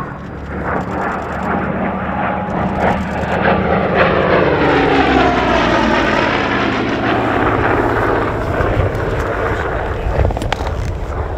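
A Goodyear FG-1D Corsair's 18-cylinder Pratt & Whitney R-2800 radial engine and propeller in a low flypast. It grows louder as the plane closes in, then drops in pitch as it passes, and begins to fade near the end.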